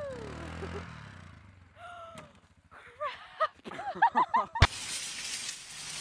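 ATV engine running, dropping away about a second in, followed by a string of short, high shouts and cries from people. A sharp click near the end gives way to a steady outdoor hiss.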